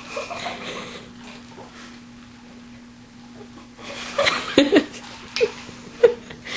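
A girl's short, throaty burp about four and a half seconds in, its pitch sliding down, followed by a couple of brief small throat sounds.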